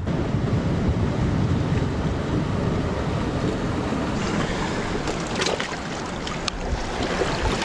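Wind buffeting the microphone over sea water washing against shore rocks: a steady rumbling rush, with more hiss and a few sharp clicks in the second half.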